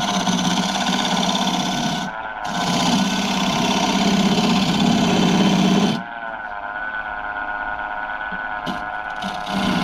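Wood lathe spinning with a gouge cutting the turning bowl blank: a steady motor hum under a rough scraping hiss of the cut. The cut breaks off briefly about two seconds in and stops about six seconds in, leaving the lathe running on its own, then touches in again near the end.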